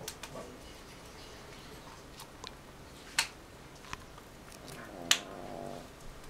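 A pug sleeping on her back, snoring. The breathing is broken by sharp clicks, the two loudest about three and five seconds in, with a short buzzing snore around the second of them.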